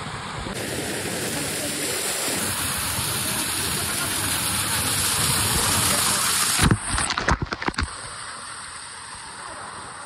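Small waterfall rushing and splashing over rocks in a steady noise that grows louder as the phone moves close into the falling water. About seven seconds in, a quick cluster of sharp crackles as water strikes the microphone, then a softer, steady rush of the cascade.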